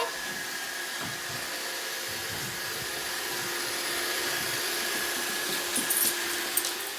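Roomba robot vacuum running, a steady whirring hiss of its motor and brushes with faint steady tones. A few light clicks near the end.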